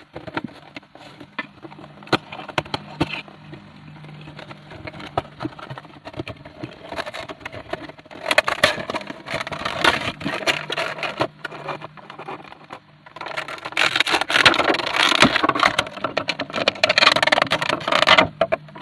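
A Funko Pop vinyl figure being unboxed by hand: the cardboard window box and plastic insert crinkle, scrape and click, with two longer spells of loud crinkling, about eight seconds in and again about fourteen seconds in.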